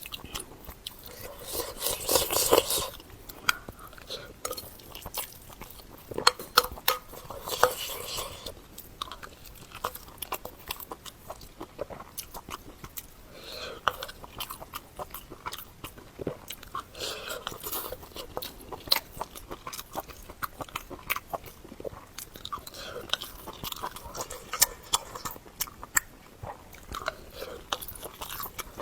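A person eating close to the microphone: steady chewing and biting with many sharp crunches and mouth clicks, and a few short, louder bursts of crunching now and then.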